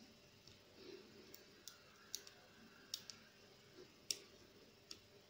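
Faint, irregular clicks of a hook pick working the pins of a brass padlock under a tension wrench, about eight sharp ticks spread over a few seconds as the pins are set one by one.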